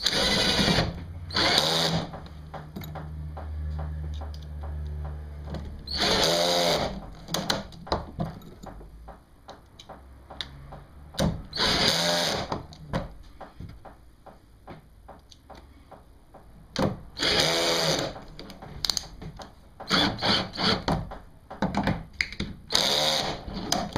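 Power drill run in about seven short bursts, each spinning up and winding down, with quieter handling noise between them while the GearTrac rails are fitted to the kayak.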